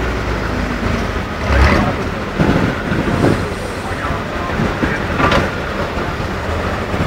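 Engine of an eight-wheeled Tatra 813 trial truck working under load as it crawls through a muddy gully, a steady heavy rumble with a few louder surges.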